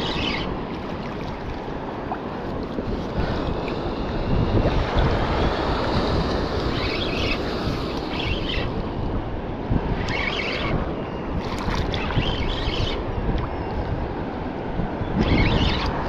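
Surf water sloshing and churning against a camera held at the waterline, with wind buffeting the microphone. Short hissing splashes break in several times, a few seconds apart.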